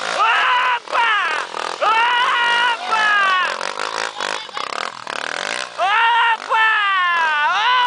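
Trail motorcycle (dirt bike) engine revving hard in repeated bursts as it powers up a steep, loose dirt climb, the pitch falling in most bursts. Riders are shouting and cheering close by.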